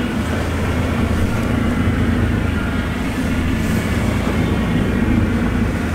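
Fishing boat's engine running steadily, a low even drone.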